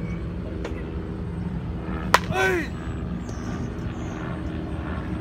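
A baseball bat striking a soft-tossed ball: one sharp crack about two seconds in, over a steady low background hum.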